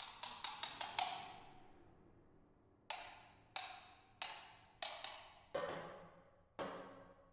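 Struck percussion from the solo percussionist, each stroke ringing and dying away. There is a quick run of about five strokes in the first second, a pause, then single strokes at an even pace, about two-thirds of a second apart.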